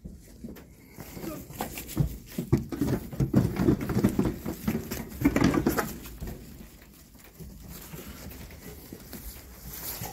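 Lambs' hooves clattering on a livestock trailer's metal ramp as the sheep come out, a quick run of many knocks that dies down after about six seconds.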